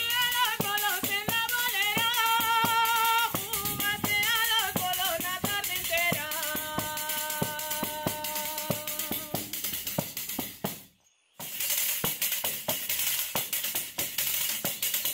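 A woman singing a folk song while beating a pandereta, a hand-held frame drum with jingles, in a steady rhythm. The singing stops about nine seconds in; after a brief silent break a couple of seconds later, the pandereta beat carries on and the singing comes back near the end.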